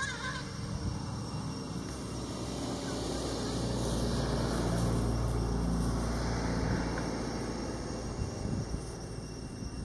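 Low, steady engine rumble of a motor vehicle. It grows louder to a peak about halfway through, then eases off, like a vehicle passing. A brief high chirp comes right at the start.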